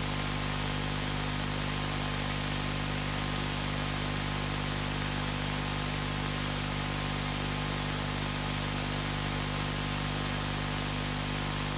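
Steady hiss with a low hum underneath, unchanging throughout: background noise of the recording with no other sound.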